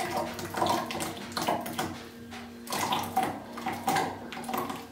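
Wild blackberries pouring from a plastic colander into a blender jar partly filled with water, splashing in a run of irregular bursts.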